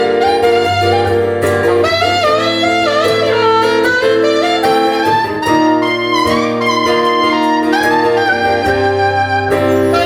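Music: an instrumental passage with a wavering lead melody over sustained chords and a steady bass.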